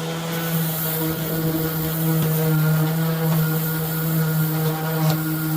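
Cordless power sander running steadily on the car's painted body panel, a constant motor whine with the hiss of abrasive on paint.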